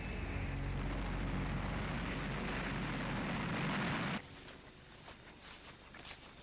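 Military jet engine noise as a plane speeds along a runway, a steady loud rush that cuts off suddenly about four seconds in, leaving a quieter hiss with faint high-pitched tones.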